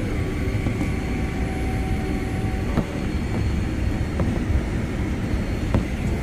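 Cabin noise of a Boeing 787-10 rolling along the ground as takeoff begins: a steady, heavy rumble from the Rolls-Royce Trent 1000 engines and the wheels on the pavement, with three light knocks about three, four and six seconds in.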